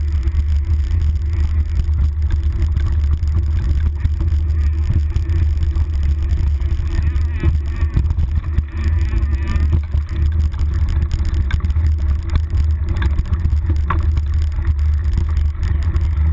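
Wind buffeting a handlebar-mounted GoPro's microphone as a mountain bike rolls fast down a dirt trail, a steady low rumble. Over it come the rattle and sharp knocks of the bike jolting over roots and rocks, two clearest near the end.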